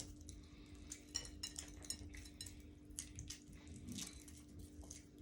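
Faint, irregular small clicks and crackles of boiled eggs being cracked and peeled by hand, over a faint steady hum.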